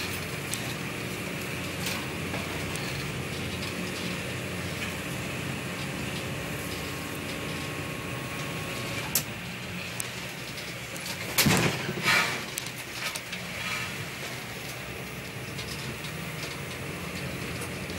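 Pilot boat's engine running steadily under a hiss of wind and sea, heard from inside the wheelhouse in heavy seas. About eleven seconds in, a loud crash and rush of water as a sea breaks against the boat, with a few smaller rushes after it.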